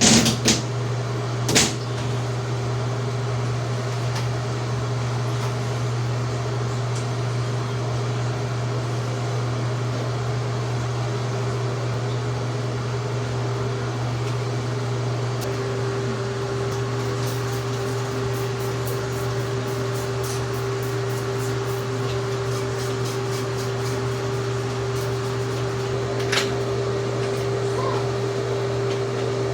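Electric spin scrubber's motor running with a steady hum, a higher tone in it growing stronger about halfway through. A sharp click comes about a second and a half in, and another near the end.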